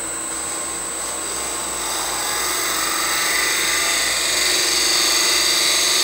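Negative rake box scraper cutting the bottom of a spinning box lid on a wood lathe: a steady scraping hiss of the edge taking off fine shavings, growing louder about two seconds in, over the lathe's steady hum.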